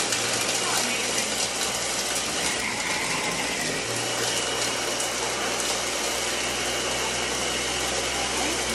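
Ninja food chopper running steadily at full speed, its blades grinding pork rinds into crumbs.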